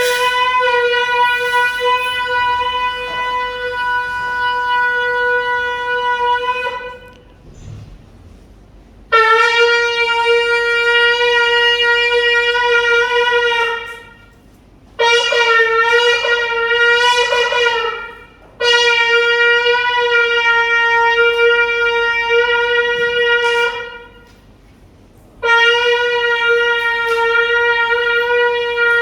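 Shofar blown in five blasts on one steady pitch, mostly long held notes of four to seven seconds with short pauses between. The third blast, about halfway in, breaks into a few short wavering notes.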